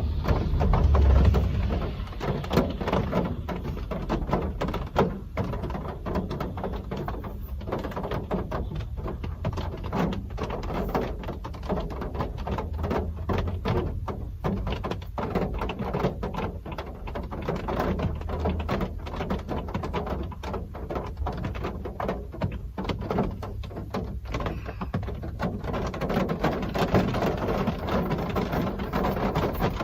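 Real rain falling: a steady hiss dotted with many close, sharp drop taps. There is a brief low rumble about a second in.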